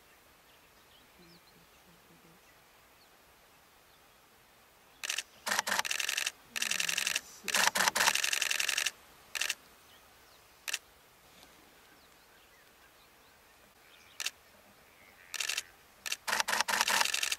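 Camera shutters firing in rapid bursts: a long spell about five seconds in and another near the end, with a few single clicks between.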